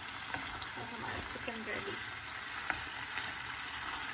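Chicken frying in oil in a pan: a steady sizzle with small crackles and pops. The chicken is nearly cooked, its oil separating out.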